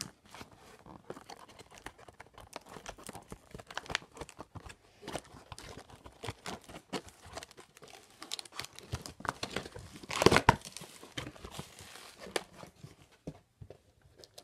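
Plastic toy packaging being crinkled and torn open by hand: many irregular crackles and snaps, with one louder tearing burst about ten seconds in.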